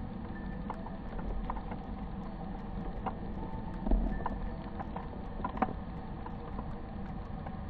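Muffled camera audio from an underwater housing: a steady low rumble with a faint hum, scattered sharp clicks, and a heavier knock about four seconds in.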